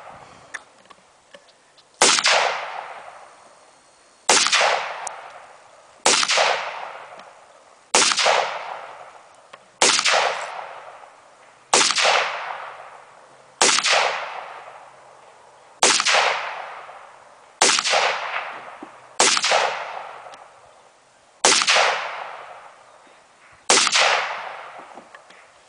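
Smith & Wesson M&P15 AR-style rifle fired twelve times in slow, deliberate semi-automatic fire, a shot about every two seconds, each shot trailing off in a long echo.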